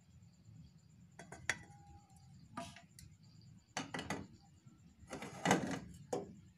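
Kitchenware clattering as a metal pot, a plastic strainer and a glass mug are handled and set down on a tiled counter: several separate clinks and knocks, the loudest a little over five seconds in.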